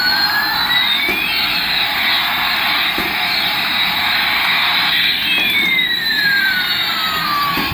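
Toy aircraft making a steady jet-like hiss, with two whining tones that glide towards each other, merge for a few seconds, then glide apart again.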